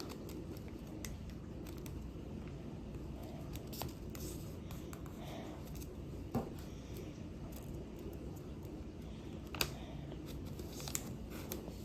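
A sheet of paper being folded and creased by hand: soft rustles and scrapes, with a sharper crackle about six seconds in and again near ten seconds, over a low steady hum.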